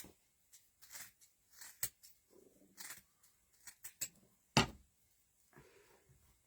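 Scissors snipping through thick, fibrous nest material in scattered, irregular cuts, one sharper and louder snip about four and a half seconds in.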